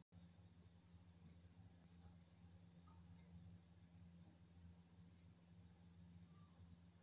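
Faint, steady, high-pitched trill of a cricket in fast even pulses, over a low steady hum.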